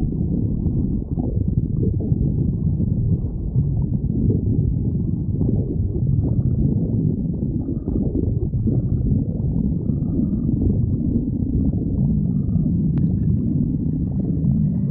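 A person's stomach growling: continuous low rumbling and gurgling from the digestive tract, recorded close against the belly.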